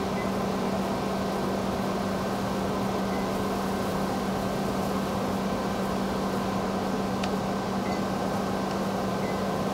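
Steady hum with a low constant tone and a hiss from a powered-up DMG Mori NLX-2500/500 CNC turning center idling with its spindle stopped, with one faint click about seven seconds in.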